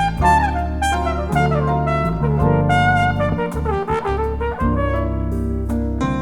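Jazz recording: a brass lead plays a flowing melody with sliding notes over a sustained bass line.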